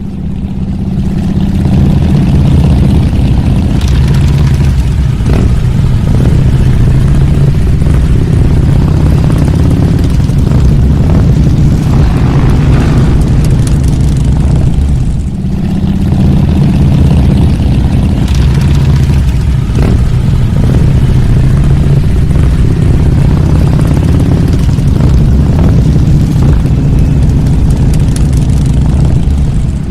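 A group of motorcycle engines running together, loud and steady. The sound swells up over the first couple of seconds and dips briefly about halfway through.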